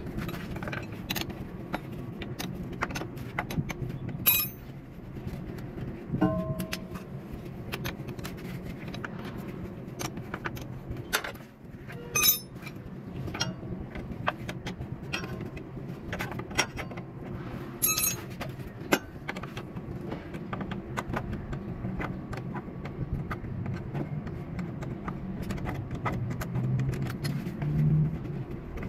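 Metal hand tools clinking, tapping and scraping on a truck's corroded battery terminals and cables as they are taken off, with a few louder metallic clinks. A steady low hum runs underneath.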